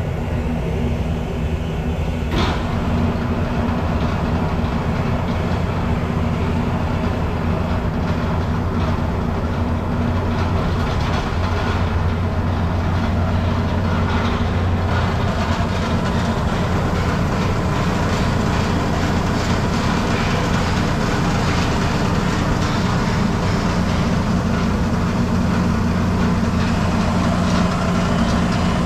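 RandBright HD-100 centerless grinder/polisher running steadily under power: a constant motor hum with a low drone, and one sharp click about two seconds in.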